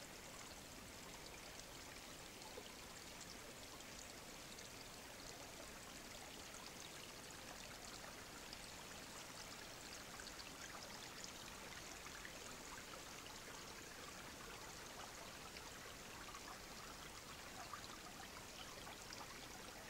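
Small forest stream running over stones: a faint, steady babble of water.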